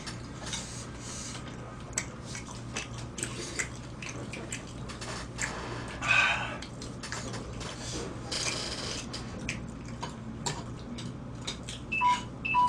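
Eating sounds at a table: metal spoons clicking and scraping against stone bowls, over a steady low hum. Two short high beeps near the end.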